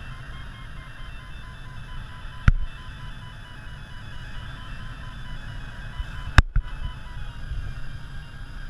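Airflow rushing past a glider's canopy in the cockpit, with an audio variometer beeping in short repeated tones, the sign of the glider climbing in a thermal. Two sharp clicks, one about two and a half seconds in and a louder one about six seconds in.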